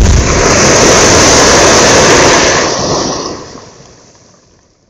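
Quarry rock blast shot with ANFO (ammonium nitrate fuel oil): a loud, sustained roar of the detonation and the heaving, falling rock, which fades away over the last two seconds.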